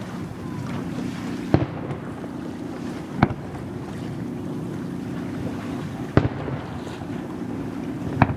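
Fireworks bursting: four sharp bangs a second and a half to three seconds apart, over a steady low hum.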